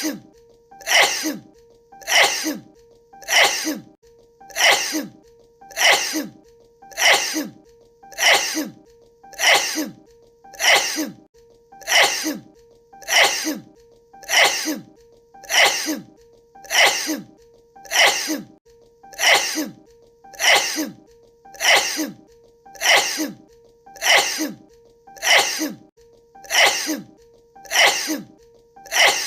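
A sneezing fit: the same short sneeze looped over and over, one about every 1.2 seconds in an even rhythm, over a faint steady tone.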